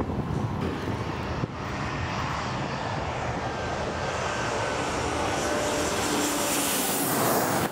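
Airliner on low final approach passing overhead to land. Its engines make a steady rushing noise that grows gradually louder, with a faint steady whine.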